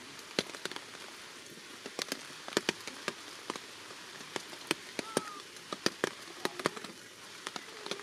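Rain falling with a steady hiss, while large drops strike close by as sharp, irregular taps, several a second.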